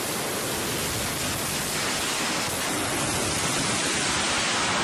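A steady, even rushing noise with no distinct tone, rhythm or sudden change.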